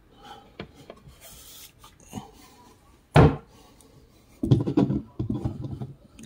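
Wooden lid of a Victrola record player being lowered as its folding lid stay is released, with faint rubbing and creaking, then shutting with one sharp knock about three seconds in.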